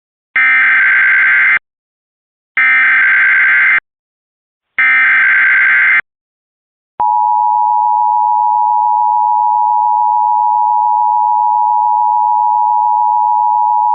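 Emergency Alert System tones for a tornado warning. First come three harsh buzzing bursts of digital header data, each about a second long with short gaps between them. After a pause, a steady two-tone attention signal starts about seven seconds in and holds on.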